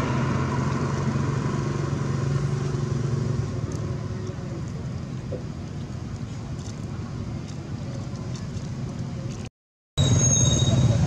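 A steady engine hum runs over constant background noise and fades after about three and a half seconds. After a brief dropout near the end, louder sound returns with two high, thin steady tones.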